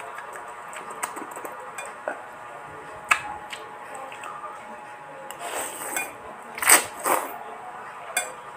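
Spoon and fork clicking against a bowl a few times, then noodles slurped into the mouth in several wet sucks, the loudest about two-thirds of the way through.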